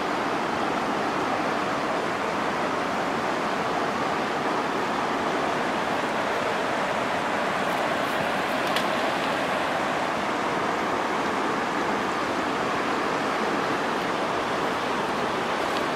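Steady rush of river water running over rocky shallows, with one faint click a little past halfway.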